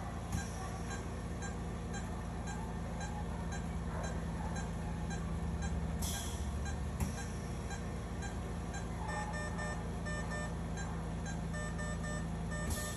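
Regular faint electronic beeping over a steady hum, as from a patient monitor in the operating room, with a few sharp clicks and light rustling as cloth surgical drapes are handled.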